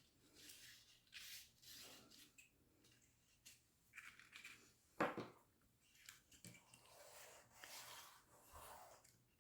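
Quiet rustling and rubbing of paper card being handled and pressed into place while glued, with one sharper tap about five seconds in.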